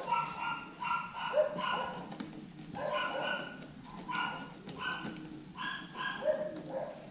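A dog barking over and over, in quick runs of two or three barks about a second apart.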